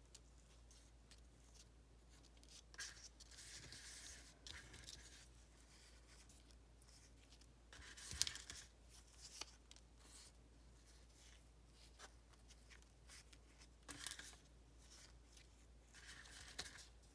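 Craft paper and plastic packaging being handled, rustling and crinkling in short, soft bursts, with a sharper crackle about eight seconds in.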